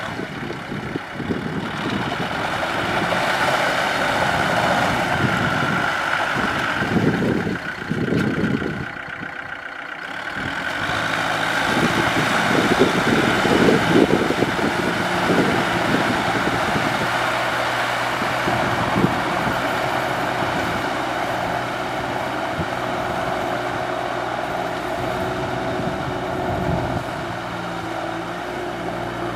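Kubota M6040SU tractor's four-cylinder diesel engine running steadily under load while it pulls a rotary tiller through wet paddy mud. The sound dips briefly about nine seconds in, then carries on.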